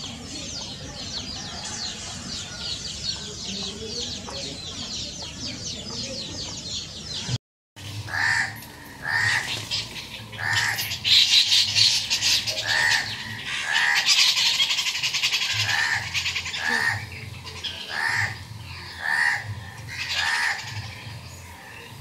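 Birds calling: about seven seconds of dense, high twittering that cuts off abruptly. Then a run of short repeated calls, roughly one a second, over busy high-pitched chatter.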